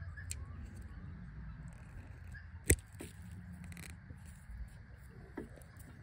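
Hand crimping tool working an Anderson plug contact onto stranded copper wire: a few small metal clicks and one sharp click about halfway through, over a low steady rumble.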